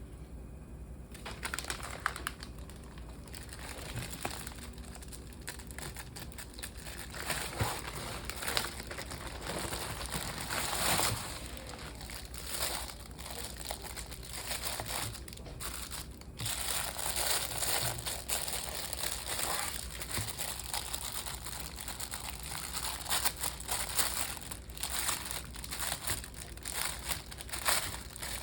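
Packaging crinkling and rustling as it is handled, in irregular bursts of varying loudness.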